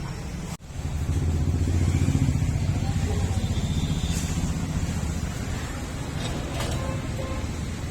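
A motor running steadily with a low rumble, cutting out for an instant about half a second in.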